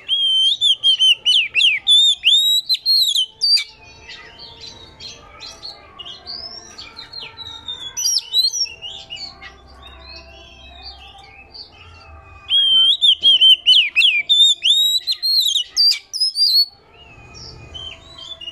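Oriental magpie-robin singing: a loud run of fast, sweeping whistled phrases at the start and again about twelve seconds in, with quieter, varied chattering song between.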